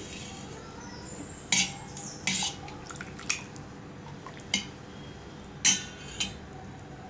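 Kitchen utensil clinking and knocking against dishes: about six separate light clinks, irregularly spaced.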